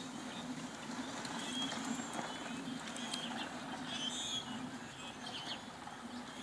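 Quiet outdoor background with a steady low hum and a few short, high chirps scattered through it.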